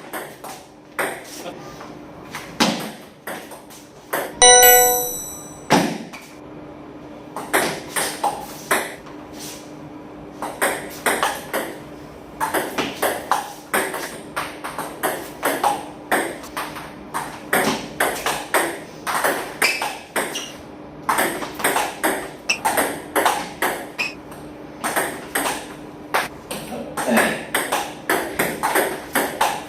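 Table tennis balls struck in a fast multi-ball drill: quick sharp ball hits on paddle and table, several a second. A short bell-like chime rings out about four and a half seconds in, over a steady low hum.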